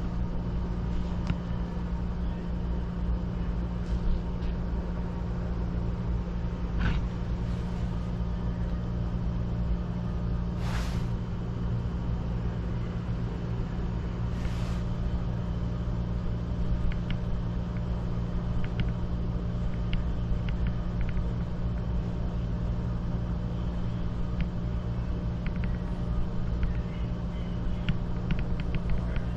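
Steady low mechanical rumble with a constant hum, broken by two short hisses about a third and halfway through, and a few faint ticks near the end.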